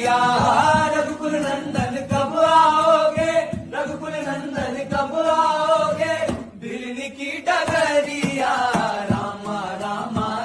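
Hindi devotional bhajan sung as a chant over instrumental music with a steady beat.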